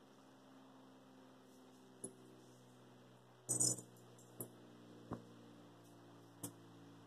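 Steady low electrical hum under a few sharp clicks, with one louder knock and rustle about halfway through.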